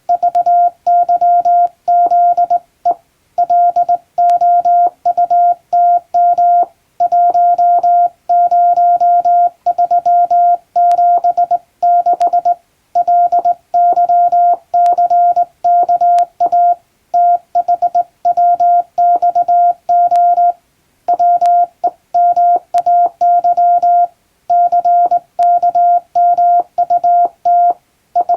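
Hand-sent English Morse code on a straight key: a steady beep of about 700 Hz keyed on and off in a fast stream of dots and dashes, with short pauses between words.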